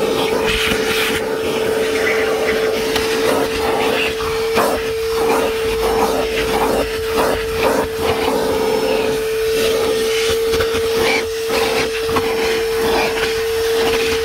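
DeWalt 9-gallon 5 hp wet/dry shop vacuum running steadily with a constant whine while vacuuming out dirt. Irregular short knocks and scrapes come and go over it.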